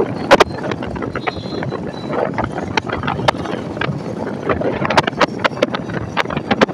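Wind rushing and buffeting over the microphone of a Royal Enfield Hunter 350 motorcycle riding at road speed, with engine and tyre noise underneath, crackling irregularly throughout.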